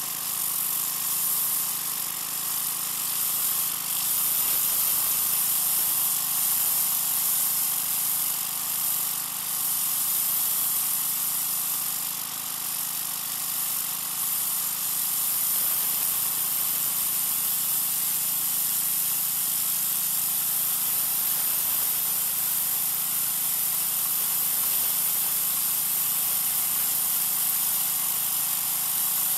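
Troy-Bilt 2200 psi pressure washer running steadily, its oscillating-tip water jet spraying against concrete with a constant hiss.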